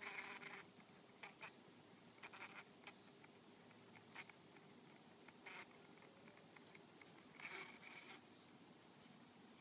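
Bumblebee trapped inside a lady's slipper orchid's pouch: its steady buzz stops about half a second in, then it gives brief, irregular bursts of buzzing and scrabbling every second or two, the longest near the end.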